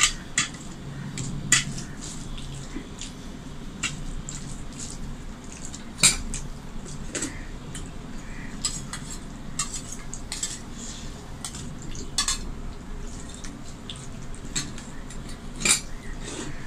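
Stainless steel dishes and a spoon clinking as a man eats rice by hand: scattered sharp clinks, the loudest near the start and about six seconds in, as curry is spooned from a small steel bowl onto the rice plate. Between the clinks, the hand mixes the rice on the steel plate.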